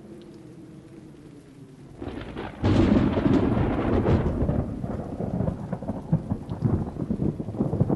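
A low steady tone, then a sound-effect thunderstorm breaks in: thunder cracks loudly about two and a half seconds in and keeps rolling over heavy rain.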